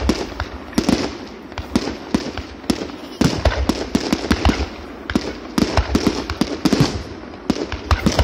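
Fireworks going off in quick succession: sharp, irregular bangs, several a second, with crackling between them.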